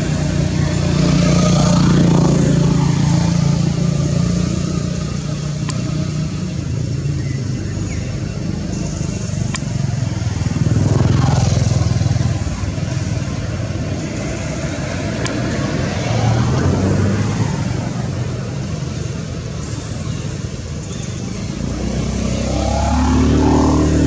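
Motor vehicles, motorbikes among them, passing one after another, the engine noise swelling and fading about four times over a steady low rumble.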